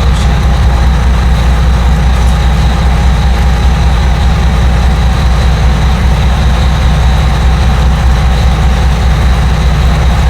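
A fishing boat's engines running steadily under way, a constant deep drone.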